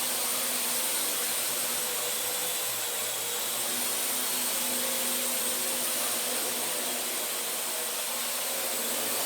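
Small Wi-Fi quadcopter drone flying, its propellers making a steady, even whir.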